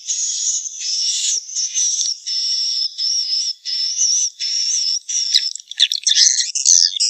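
Swiftlet calls played as a nest-house lure sound: a string of high, twittering chirps with a wavering high tone, about seven calls separated by short gaps, turning busier and more jumbled near the end.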